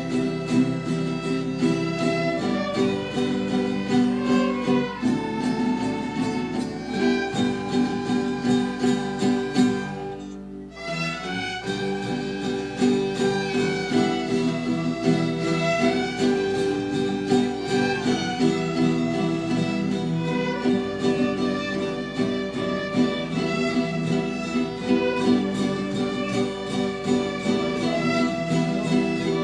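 A student ensemble of violins, with flutes, playing a tune in sustained bowed notes. The music drops briefly about ten seconds in, then carries on.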